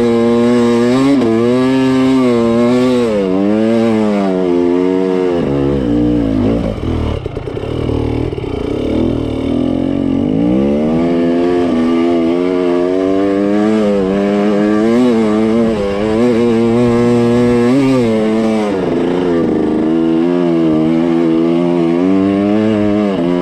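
KTM 300 TPI two-stroke dirt bike engine under load on a steep trail climb, its pitch rising and falling with the throttle. About six seconds in the note drops low and goes rough for a few seconds, then picks up again and carries on revving up and down.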